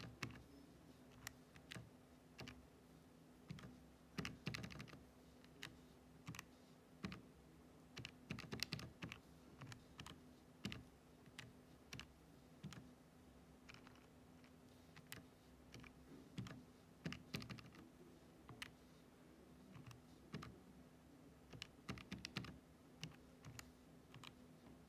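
Keys of a Casio fx-991EX ClassWiz scientific calculator being pressed to type in a sum: faint irregular clicks, some single and some in quick runs, over a faint steady hum.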